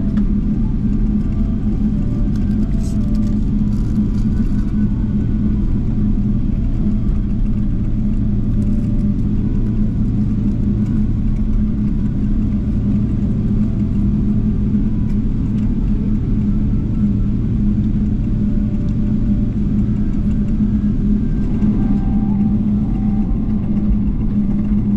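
Steady low drone inside the cabin of a Boeing 777-300ER taxiing on the ground after landing, its GE90 engines at idle.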